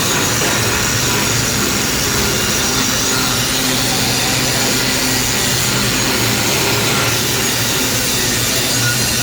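Stick (shielded metal arc) welding with an E6013 electrode on a hot pass: a steady crackling, sizzling arc with a low hum from the welding machine underneath.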